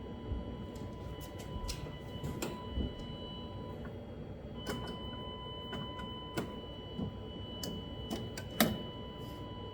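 Scattered, irregular light clicks and taps over a faint, steady high-pitched tone.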